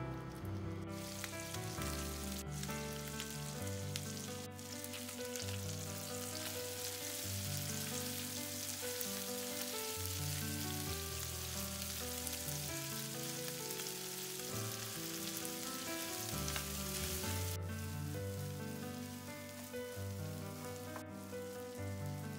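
Canned corned beef frying in hot olive oil in a nonstick pan, a steady sizzle that starts about a second in and falls away near the end.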